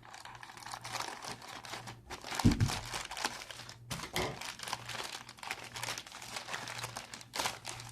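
Packaging being crinkled and rustled by hand as a mailed parcel is opened, with a thump about two and a half seconds in and a faint steady hum underneath.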